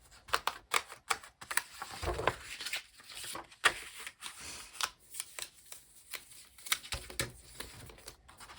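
Paper planner pages and inserts being handled and pulled from a disc-bound Happy Planner: irregular rustling with many sharp clicks.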